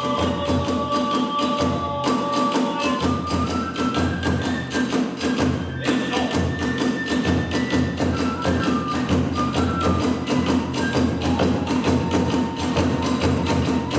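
Kagura hayashi: drums and hand cymbals beating a fast, driving rhythm while a bamboo flute plays held notes that step up and then back down.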